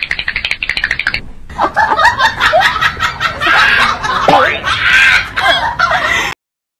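Laughter: a quick run of snickering in the first second or so, then, after a short pause, louder and longer laughing that cuts off suddenly near the end.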